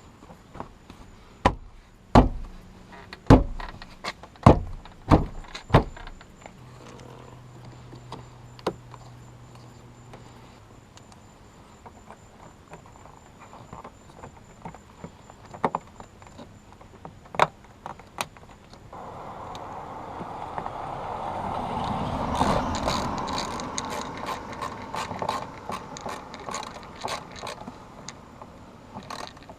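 Work on a car door: seven sharp knocks in quick succession, then a short steady motor hum and scattered clicks, and later a longer stretch of rustling noise with rapid clicking.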